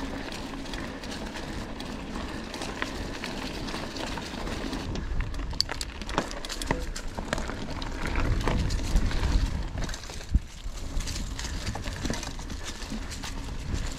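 Mountain bike riding over a forest trail: steady rolling noise with frequent clicks and rattles from the bike over bumps, and a low rumble that swells from about eight to ten seconds in.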